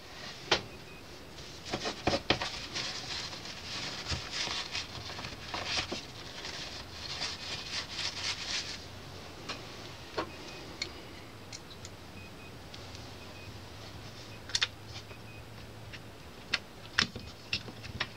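Small plastic and metal parts of a Technics SL-1900 tonearm assembly being handled during reassembly: scattered light clicks and taps, with rustling through the first half and a few sharper clicks near the end.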